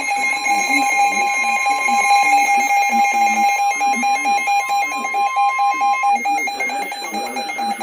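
Emergency Alert System attention tones for a flash flood warning, several alert tones sounding together. One steady tone cuts off about six seconds in, and the other tone and the electronic beeping stop near the end.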